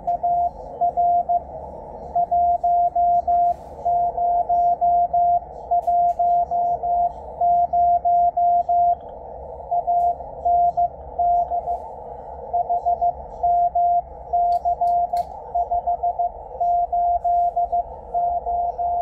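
Morse code (CW) from the W1AW ARRL code-practice bulletin, received on a Yaesu FTdx10 transceiver on the 80 m band: a single steady beep keyed on and off in dots and dashes at a brisk pace. Behind it is a band of receiver hiss, narrowed by the radio's 500 Hz CW filter.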